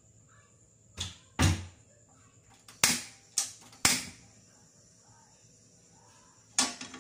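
Gas stove burner being lit: the knob's spark igniter snaps sharply several times, three loud clicks about half a second apart near the middle. A duller knock comes just before them and one more click near the end.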